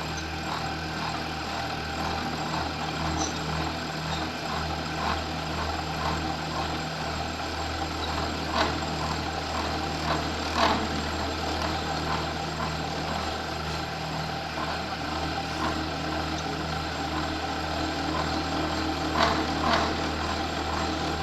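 Horizontal milling machine running, its disc cutter cutting a slot in the workpiece: a steady motor hum with scattered short ticks, a few of them louder.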